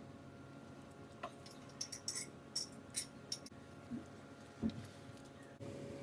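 Light clicks and taps of a tiny metal spoon against a small glass bowl as sauce is scraped out, a quick cluster of them about a second in and a couple more later, over a faint steady hum.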